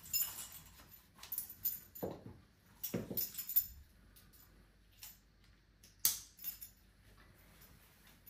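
Metal clips and rings of a dog harness and lead clinking and jangling as it is handled and fitted on a dog, with two short falling squeaks about two and three seconds in.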